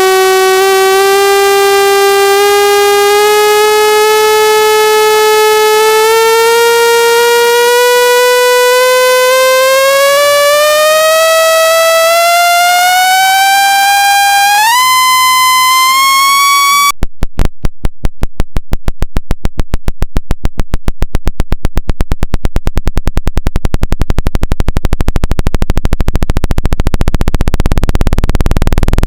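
Synthetic speaker-cleaning tone meant to vibrate water and debris out of a phone speaker: a loud, buzzy tone with many overtones gliding slowly upward in pitch, with a quick step up, then switching abruptly about two-thirds of the way through to a train of sharp clicking pulses that keep speeding up.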